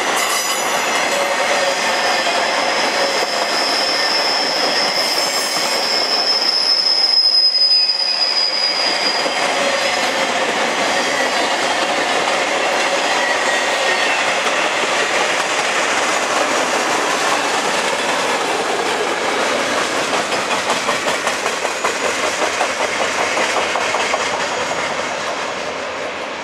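Freight cars rolling past on the rails, a continuous clattering of wheels on track, with a high steady wheel squeal from about two seconds in until about nine seconds. Later a fast, regular bumping beat sets in as the tail of the train goes by, the knock of a boxcar wheel with a flat spot, and the sound fades near the end.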